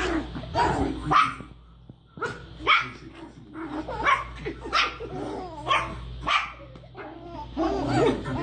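Small long-haired dog barking in a quick string of short, sharp barks, roughly two a second. The barking is a protective warning at a person reaching toward the baby it is guarding.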